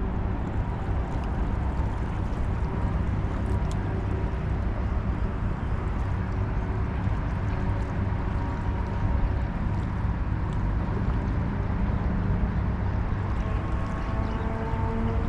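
Boat engine running steadily, its pitch rising near the end.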